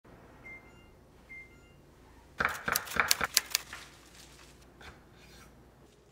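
Two short electronic beeps from an oven's control panel, then a quick run of sharp clicks and clatters about two and a half seconds in, the loudest sound here, followed by softer rustling and a click or two.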